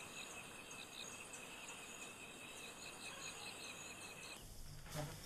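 Faint night chorus of crickets and other insects, a steady high chirring with a quicker pulsing chirp among it. It cuts off about four seconds in, giving way to a low hum and a single soft knock near the end.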